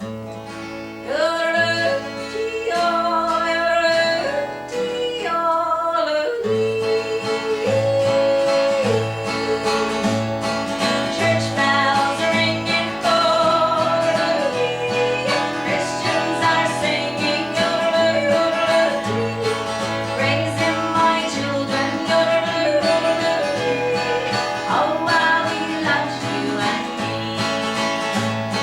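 Live country band music: strummed acoustic guitar over a pulsing bass line, with a lead melody running above them.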